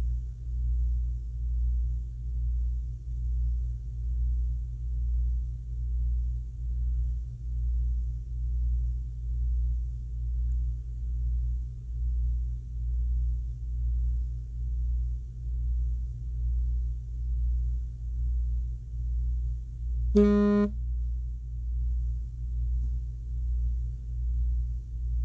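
Background music with a steady low beat, about one pulse a second. About twenty seconds in, a single brief pitched note sounds over it.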